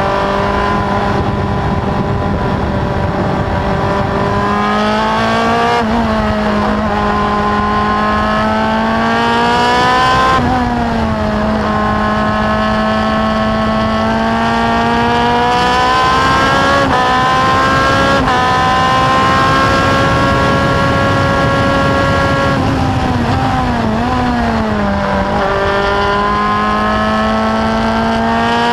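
Martini F2 single-seater race car's engine at full throttle, heard from the open cockpit. The note climbs steadily through the gears and drops sharply at each upshift. Near the end it falls away, with a few quick throttle blips as it shifts down, then climbs again.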